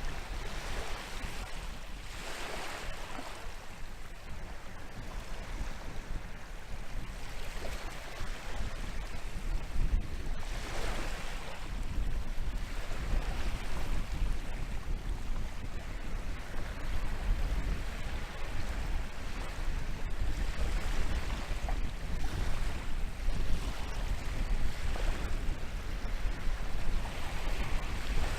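Atlantic surf breaking on a sandy beach, waves washing in every few seconds over a steady low rumble of wind buffeting the microphone.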